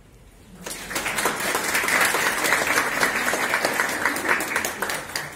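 A small group applauding, many hands clapping quickly together; it starts about a second in and stops just before the end.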